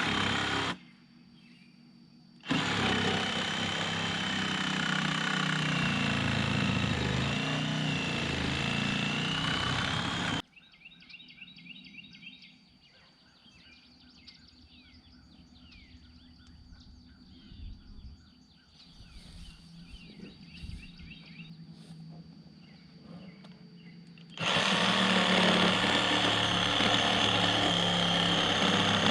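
Yanmar tractor's diesel engine running steadily with a high whine. It cuts out abruptly for a second or two just after the start. About ten seconds in it cuts off again, and for about fourteen seconds birds chirp faintly before the engine comes back at full level.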